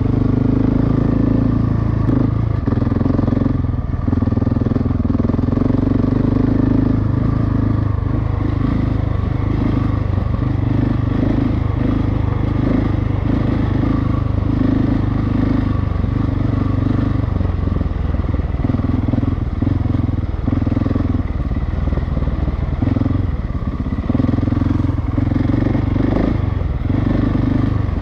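Single-cylinder dual-sport motorcycle engine running steadily while being ridden, its note holding fairly even with small changes.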